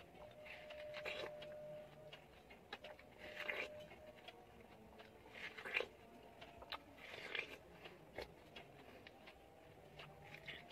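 Quiet wet biting and chewing of juicy watermelon, with about five short bites a second or two apart over faint clicking.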